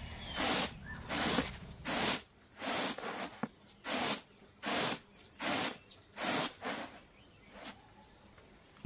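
Rhythmic swishing strokes of hand work, about three every two seconds. They stop about six and a half seconds in, with one faint last swish after.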